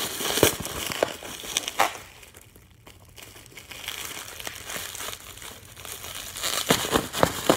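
Plastic packaging and bubble wrap crinkling and crackling in the hands, with several sharp snaps; it drops quieter for about a second partway through, then the crinkling picks up again.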